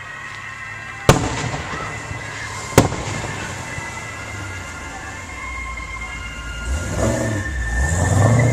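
Fireworks going off: two sharp booms about a second and a half apart, then a low rumble of further bursts that builds toward the end.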